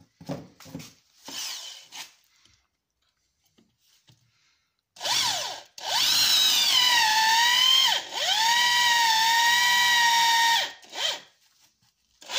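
Dorkel DRD-500-2 500 W corded impact drill boring into a wooden beam. After a few faint clicks, the motor's high whine starts about five seconds in with a short burst. Then it runs in two stretches of two to three seconds each, the whine sagging as the bit bites and dipping sharply between them, and a brief final burst comes near the end.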